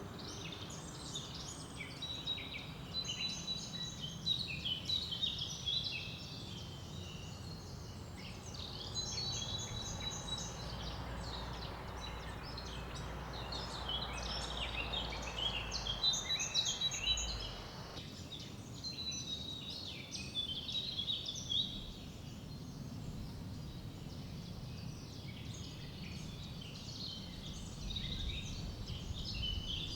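Many small songbirds chirping and singing in quick, overlapping high calls, over the steady low rush of river water running over small rapids.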